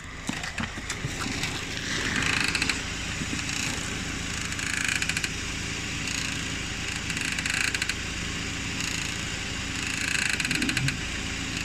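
Steering tie rod end of a Hyundai Accent squeaking in a cricket-like creak each time the steering wheel is turned, repeating about every two and a half seconds over a steady low hum. The squeak comes from dry tie rod ends in the frost, typical of ends that need greasing or replacing.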